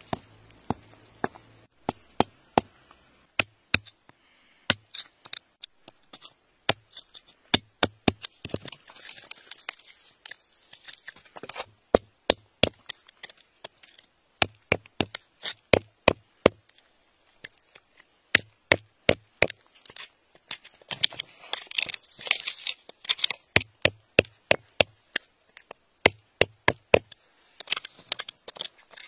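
A metal digging bar jabbing and prying into wet, gravelly soil: many sharp clicks and knocks in quick runs, some with a dull thump under them, and gritty scraping around ten and twenty-two seconds in.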